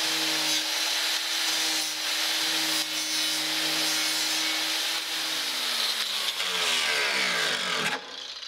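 Electric angle grinder running on the edge of a steel car fender, stripping paint back from the area to be welded, with a steady motor whine and hissing grinding noise. About six seconds in it is switched off and winds down, its whine falling in pitch until it stops.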